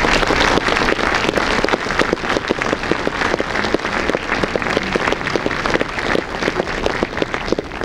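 Audience applauding, a dense patter of many hands clapping that slowly fades toward the end.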